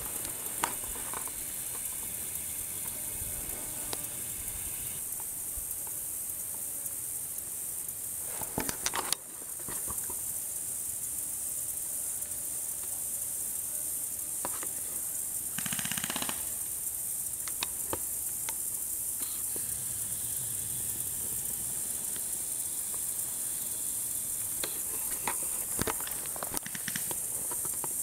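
Steady high-pitched drone of an insect chorus in tall grass, with a few brief rustles of grass and handling noise.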